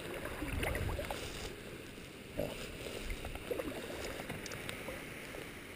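Steady rush of the tributary's flowing water, with a stronger low rumble in the first second and a few faint muffled voices now and then.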